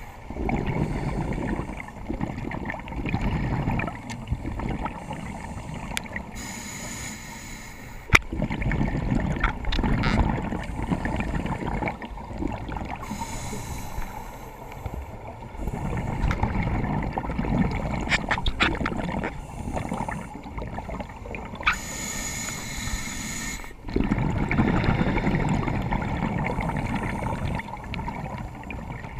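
Scuba diver breathing through a regulator, heard through an underwater camera housing: several-second bursts of exhaled bubbles bubbling low, alternating with shorter hissing inhalations. A few sharp clicks come through, the loudest about eight seconds in.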